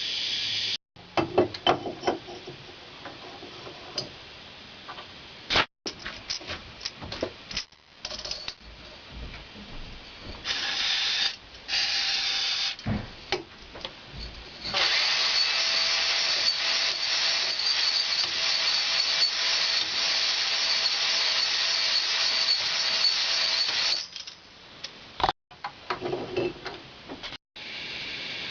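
Electric drill spinning a cylinder hone in the bore of a Harley-Davidson XLH 1200 Evolution Sportster cylinder, to break the glaze. At first there is knocking and handling clatter, then two short runs, then a long steady run of about nine seconds, and knocks again near the end.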